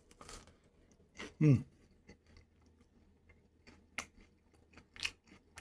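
A person chewing a bite of air-fried plant-based fish fillet, with scattered short crisp clicks, and a short hum from the voice about a second and a half in.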